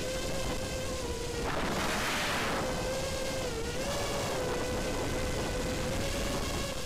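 Brushless motors of an FPV racing quadcopter (LDPower FR2305) whining steadily in flight, heard through the onboard camera's microphone with wind rushing over it. A louder rush of air comes in about one and a half seconds in and lasts about a second, and the whine's pitch sags briefly a little past the middle.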